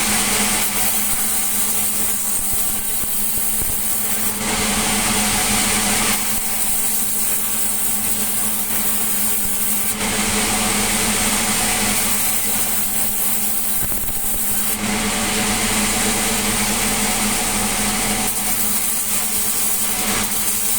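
Sawmill saw and its driving engine running steadily while sawing timber, the sound shifting every few seconds as the cut goes through in repeated passes.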